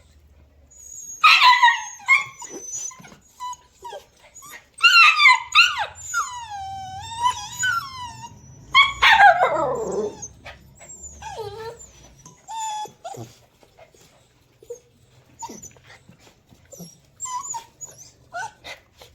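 Puppies whimpering and yelping in a run of high-pitched cries that waver and slide in pitch, with a long falling cry about nine seconds in.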